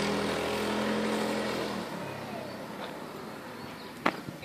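Small engine of a motorized drift trike running at a steady pitch on the track, its sound fading as the trike moves away after about two seconds. A single sharp click near the end.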